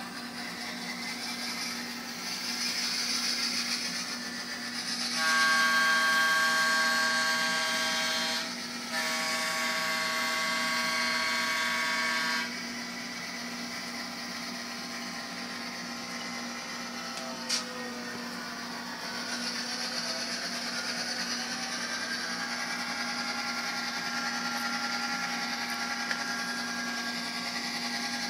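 Digital sound decoder in an N scale F7 model locomotive playing diesel-locomotive sounds through its tiny speaker: a steady engine hum and hiss, broken by two long horn blasts about five and nine seconds in, with a sharp click a little past the middle.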